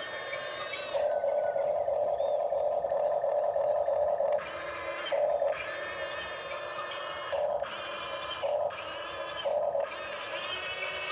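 Electric motors and gearboxes of a Huina radio-controlled toy excavator whining as it drives and works its arm. A steady whine holds for about three seconds, then comes in short spurts starting and stopping about once a second as different functions are switched.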